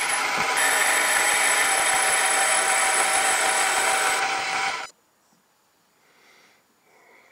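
Metal lathe running while the tool turns down a piston casting: a loud, dense hiss with a steady whine through it. It stops abruptly about five seconds in, leaving near silence.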